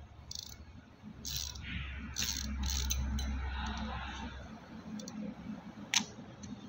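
Spinning fishing reel being cranked by hand after servicing, its rotor and gears whirring for a few seconds, with handling clicks at the start and one sharp click near the end.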